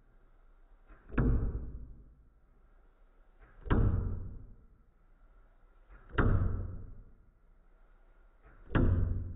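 Nerf blaster firing four times, slowed down by slow-motion playback: each shot a small click followed by a low, drawn-out whoosh that fades over about a second, one shot about every two and a half seconds.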